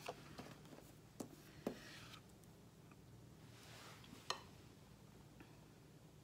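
Faint handling sounds of tarot cards being laid on a wooden table: a few soft taps, the clearest about four seconds in, and a brief light rustle, otherwise a quiet room.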